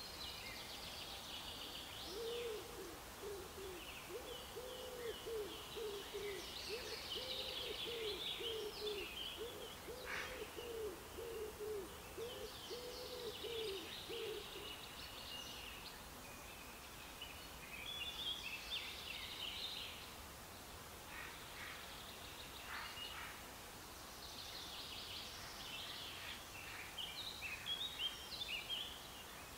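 Several songbirds singing in short, high phrases throughout. From about two seconds in to about fifteen seconds, a second bird adds a series of about a dozen low, evenly paced notes.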